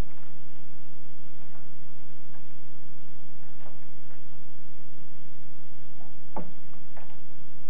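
Sparse, irregular faint taps and knocks on wood in an attic, the strongest a little after six seconds in, over a steady low hum.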